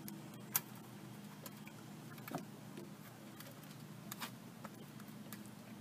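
Faint clicks and taps of a plastic mesh crawfish trap being handled as its funnel end is worked open, the sharpest click about half a second in, over a low steady hum.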